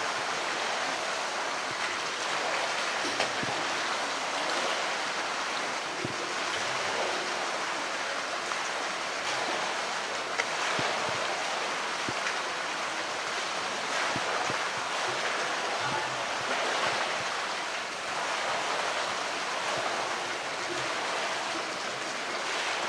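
Steady rush of running and splashing water in a polar bear's pool, with a couple of short sharp knocks as the bear plays with a plastic toy in the water.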